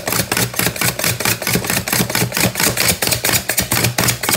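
Small food chopper's blades chopping onion chunks in its plastic bowl: a fast, continuous clatter of clicks as the pieces are hit and thrown against the walls.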